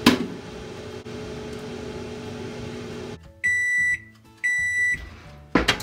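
Microwave oven running with a steady hum that stops about three seconds in, followed by two long beeps that signal the end of the heating cycle. A sharp click right at the start and a thump near the end.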